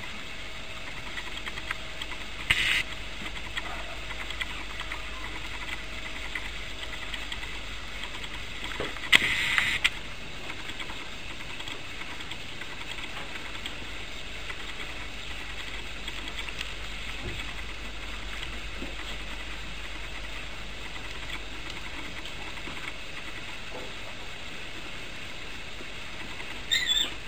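Puppies at rough play, with three short high yips over a steady background hiss: one about two and a half seconds in, a longer one around the middle, and one near the end.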